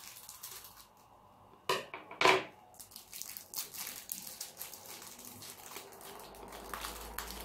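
Small thin plastic packet being handled and opened by hand: light crinkling and crackling of the plastic. About two seconds in come two louder knocks close together as steel scissors are put down on the tabletop.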